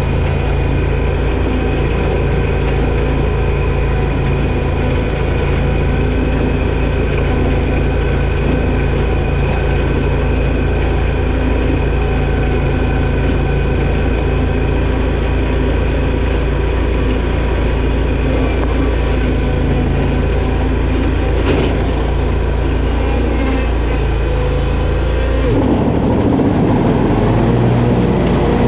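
Toro zero-turn mower's engine running steadily while mowing grass. A brief sharp click comes about three-quarters of the way through, and soon after the engine's note changes and gets slightly louder.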